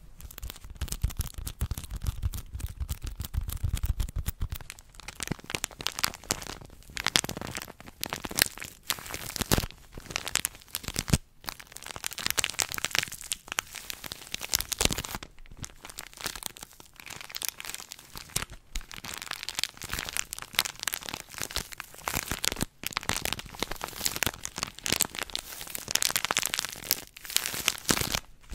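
Plastic wrapper of a pocket pack of tissues crinkled and squeezed right against the microphone: a dense, irregular run of crackles and crinkles.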